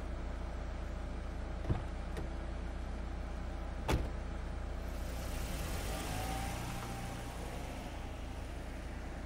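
A car engine idling with a steady low hum. Two knocks come a little under two and about four seconds in, the second louder, then a hiss builds and a short whine sounds about six seconds in as the hum fades.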